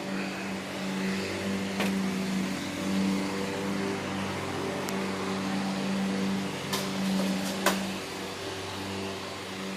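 Grizzly G0704 CNC mill running: a steady motor hum, upper tones that shift in steps, and a hiss, broken by a few sharp ticks, the loudest near the end.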